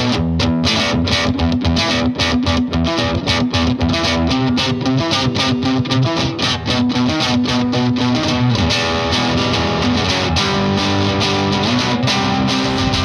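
Electric guitar, a Fender Custom Shop '57 Stratocaster through an MXR Duke of Tone overdrive pedal into a Vox AC15 amp, played with a driven tone. Quick picked chords and riffs, about four to five attacks a second, ease into longer ringing chords over the last few seconds.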